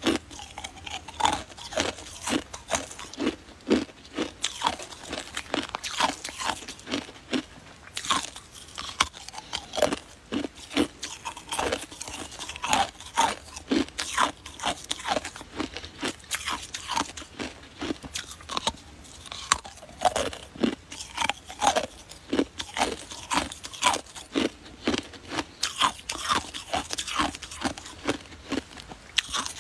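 A person chewing mouthfuls of icicle ice: a dense run of irregular, crisp crunches as the ice is bitten and ground between the teeth.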